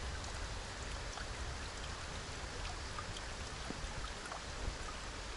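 Steady rain falling, heard as an even hiss with a low rumble underneath and individual drops ticking close by.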